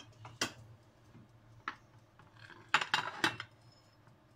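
Utensil clinking and scraping against ceramic plates while food is served: a couple of separate clinks, then a cluster of louder clinks about three seconds in.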